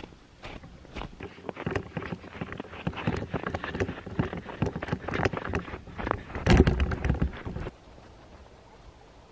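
Footsteps crunching through snow, with close rustling and knocks from handling a camera. Near the end comes a loud muffled bump of handling, then the sound drops abruptly to a faint steady background.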